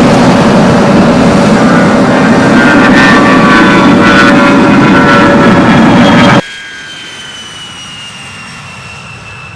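A-10 Warthog's twin turbofan jet engines running loud, a dense rush with a steady whine. About two-thirds of the way through the sound cuts off suddenly to a much quieter jet whine that slowly falls in pitch.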